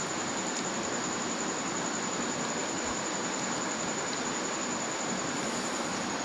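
Steady, even hiss with a thin high-pitched whine running through it; no clicks or knocks stand out.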